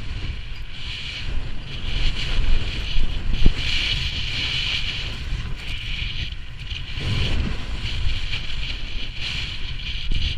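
Wind buffeting a helmet-mounted microphone on a downhill run, with a rough hiss of edges scraping over snow that swells and fades with each turn.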